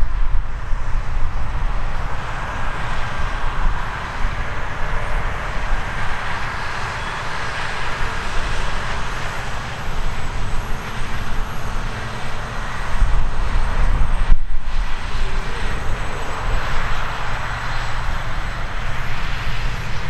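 Claas Lexion 770 TT combine harvester running under load while harvesting grain: a steady engine drone with the rush of its threshing machinery. The sound dips for a moment about three-quarters of the way through.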